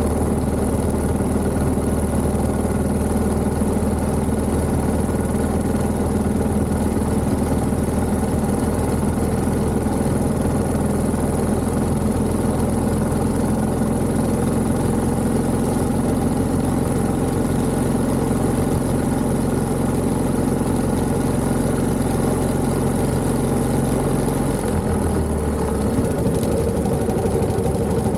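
1929 Méray motorcycle's JAP 600 engine running at a steady speed. Its note drops near the end.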